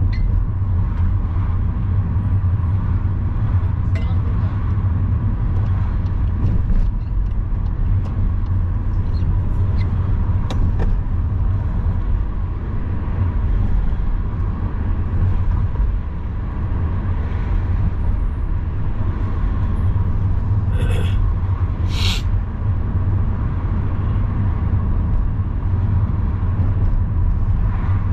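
Steady low rumble of a moving car's engine and tyres on the road, heard inside the cabin. Two short high-pitched sounds come about three-quarters of the way through.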